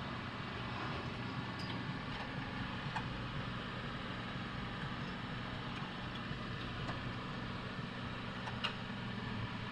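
A steady low mechanical hum with a few faint clicks, about one and a half, three and eight and a half seconds in.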